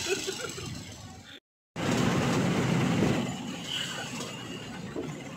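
Rumble and rattle of a moving jeepney heard from inside the cabin, with a brief total dropout of sound about one and a half seconds in.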